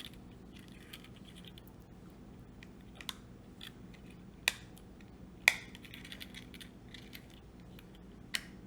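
Small plastic clicks and faint scratching from a key fob being handled, fingers working at its plastic casing. A few sharper clicks stand out among the faint ticks, one about three seconds in, two in the middle and one near the end.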